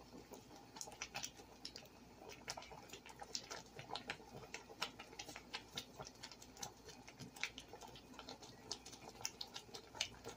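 Thick tomato sauce boiling in a pot: faint, irregular popping of bubbles bursting at the surface, several pops a second.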